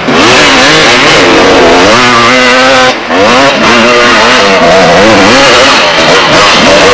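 Honda CR500af two-stroke motocross engine, revving hard and close, its pitch rising and falling again and again as the throttle is worked, with a brief drop about three seconds in.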